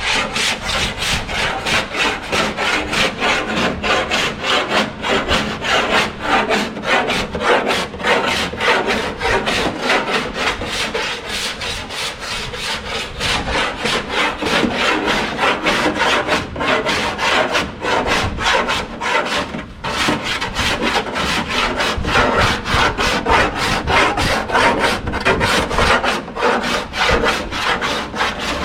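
Steel car body panel being file finished with a hand panel file: steady back-and-forth rasping strokes, several a second, skimming the metal straight without body filler.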